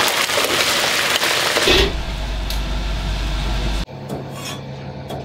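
Squid flash-frying in smoking-hot oil in a wok, the oil sizzling hard while a ladle stirs it. About two seconds in, this gives way to a steadier rushing noise with a low hum. Near the end come a few sharp chops of a Chinese cleaver on a cutting board.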